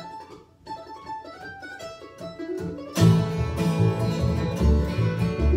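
Acoustic bluegrass trio of mandolin, flatpicked acoustic guitar and plucked upright bass. A single instrument picks a few quiet opening notes, then about three seconds in all three come in together, much louder, with a strong bass line.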